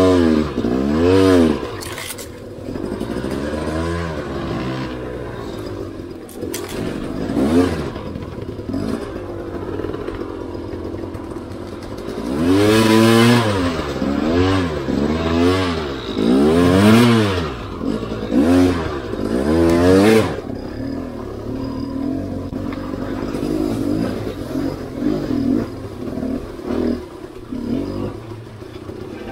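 Enduro motorcycle engine blipped in repeated short revs that rise and fall in pitch, running lower between them, as the bike picks its way over rocks and through water in a creek bed; the heaviest bursts of throttle come about halfway through.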